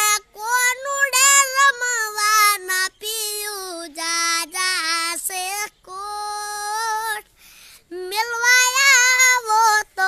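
A child singing unaccompanied, in several high, held phrases with wavering ornaments and short breaks between lines.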